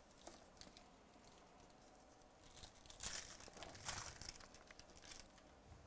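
Faint crinkling and tearing of trading card packaging as packs are handled and opened, in a cluster of short rustles in the second half, loudest about three and four seconds in.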